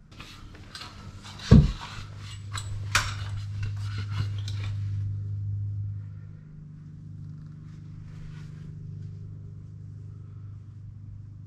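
A run of light clicks and clatters with one heavy thump about one and a half seconds in, fading out after about five seconds, over a steady low hum.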